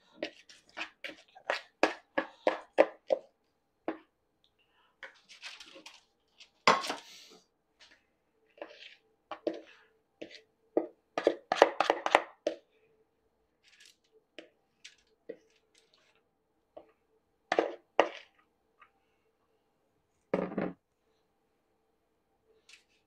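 A spoon stirring and scraping sticky cereal mixed with protein powder and syrup in a plastic bowl, then scooping clumps of it onto parchment paper: irregular clicks and scrapes in short runs with pauses between.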